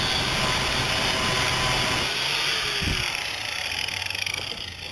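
Electric angle grinder with a sanding disc sanding the fiberglass-taped epoxy seams of a plywood hull. It is switched off about two seconds in and winds down, fading over the next couple of seconds.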